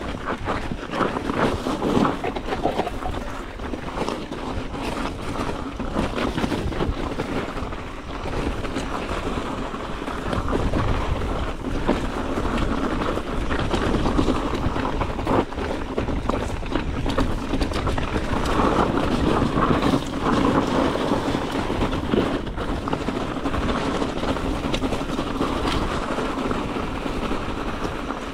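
Mountain bike being ridden over a rough trail: tyres rolling over dirt and rock and the bike rattling in a steady run of small knocks, with wind buffeting the action camera's microphone.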